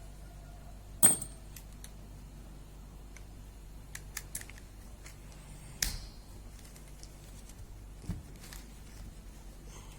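Metal tools and compressor parts clinking during hand work: a sharp metallic clink about a second in, another near six seconds, and a few light ticks between, over a steady low hum.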